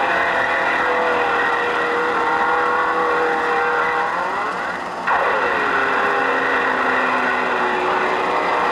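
Racing sports car engines running hard as cars go past, their pitch falling as each passes. Two cars pass, one just as the sound begins and another about five seconds in.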